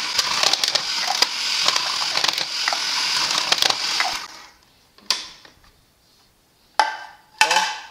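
Electric food processor running, its slicing disc cutting potatoes into thin slices: a steady whir with many small clicks and crunches as the potatoes are pushed through. It stops about four seconds in, and a few short sounds follow.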